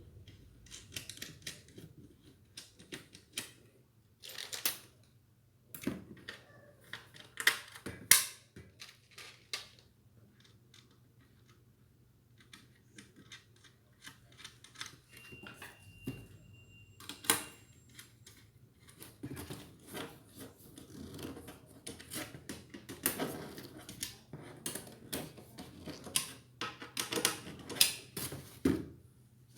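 Irregular clicks, taps and knocks of ceiling fan blades, brackets, screws and hand tools being handled and fitted during blade assembly, with a few louder knocks.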